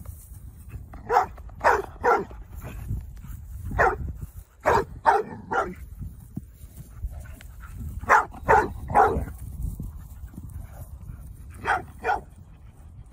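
A dog barking while it plays with a horse: about a dozen short barks, coming in quick bunches of two or three with pauses of a second or two between them.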